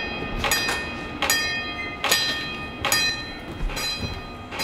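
Doorbell ringing repeatedly: about five bright, ringing chimes, roughly one every second.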